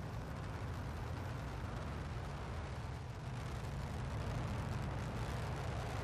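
Delta IV Heavy rocket's three RS-68A engines at liftoff: a steady deep rumble, most of its weight in the bass, with a rough hiss above it.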